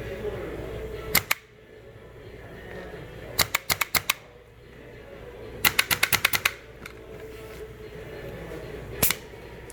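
Mancraft HPA airsoft gun firing BBs in quick bursts: a pair of shots, a burst of about six, a longer burst of about nine, then a single shot near the end.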